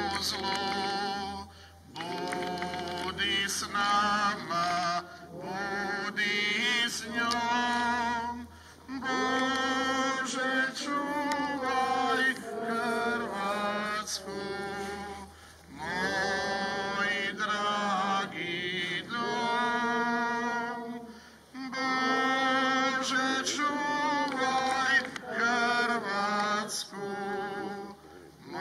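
People singing a slow religious hymn, in drawn-out phrases of a few seconds with short breaks for breath between them.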